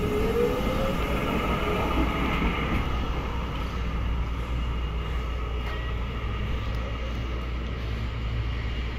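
HTM GTL8 articulated tram pulling away from a stop and running off along the street track, a steady low rumble from its wheels and running gear. A whine rises in pitch in the first half-second as it gathers speed.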